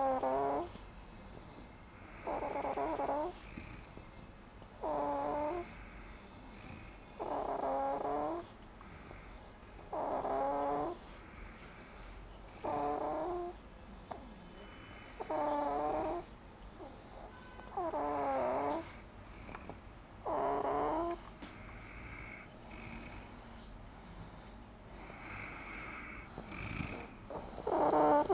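Rhythmic snoring, one snore roughly every two and a half seconds, each about a second long with a wavering pitch. The snores stop for several seconds after about twenty seconds, then one more comes near the end.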